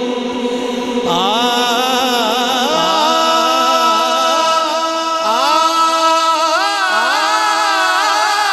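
Vocal introduction of a naat: a layered chorus of voices chanting over a held drone, with a new set of voices gliding in about a second in.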